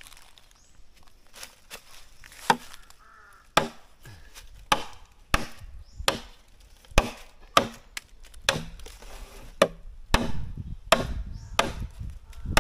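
A machete chopping into a green bamboo pole: a dozen or so sharp, woody knocks, roughly one every second.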